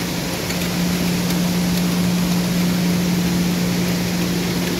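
Steady drone of industrial machinery running, with a constant low hum and an even rushing noise.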